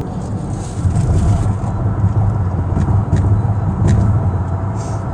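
Steady low rumble of a car's tyres and engine at highway speed, heard from inside the cabin, with a few light clicks around the middle.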